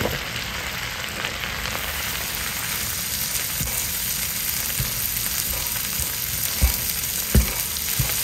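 Sliced shiitake mushrooms sizzling in a sauté pan of hot olive oil and butter, with a steady frying hiss. Tongs stirring them knock against the pan a few times, the loudest knocks in the second half.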